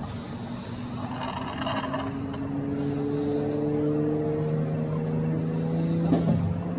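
A motor vehicle engine running, its hum climbing slowly in pitch and growing louder, then falling away near the end.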